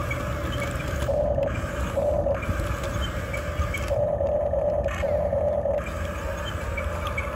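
Electric motors of a Huina RC excavator whining as the boom, arm and bucket move. There are two short whines about a second apart, then a longer one lasting about two seconds, over a steady low rumble.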